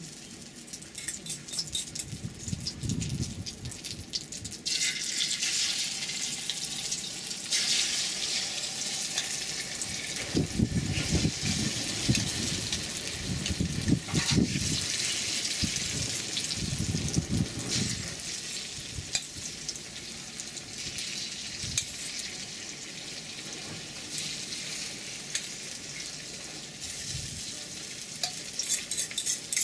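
Beaten egg and cha-om (acacia shoots) sizzling in hot oil in a wok. The sizzle starts about five seconds in as the mixture is poured, grows louder a few seconds later, then settles into a steady frying hiss. Now and then the metal spatula scrapes and knocks in the pan.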